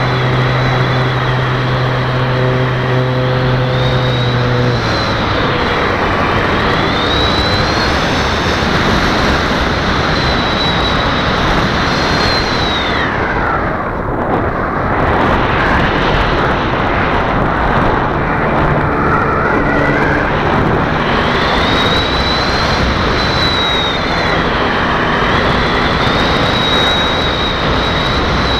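Onboard sound of a radio-control model Cessna 350 in flight: the motor and propeller whine, wavering in pitch, over heavy rushing wind noise on the wing-mounted microphone. About halfway through the whine slides down and fades as the throttle comes back, then rises again about two-thirds of the way in. A low steady hum sits under it for the first few seconds.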